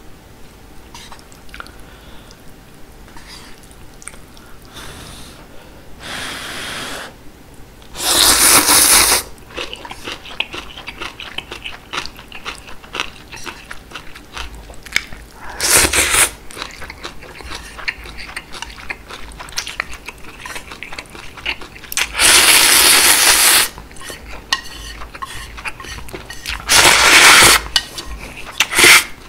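Ramen noodles and seaweed beef broth slurped from a ladle-spoon: four loud slurps spread through, each about a second to a second and a half long, with wet chewing and light clicks of chopsticks and spoon in between.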